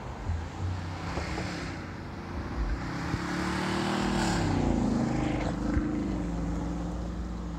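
VIA Rail passenger train approaching along the line, its rumble and engine drone growing louder toward the middle. The pitched drone dips in pitch twice.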